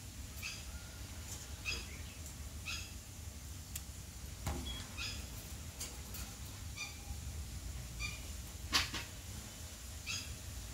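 Indian ringneck parakeet giving short, high chirps about once a second. There is one louder, sharper sound near the end.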